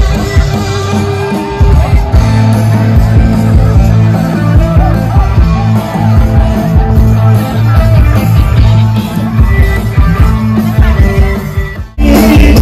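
Loud band music with singing over a steady bass line. Near the end it fades out and a louder passage of music starts abruptly.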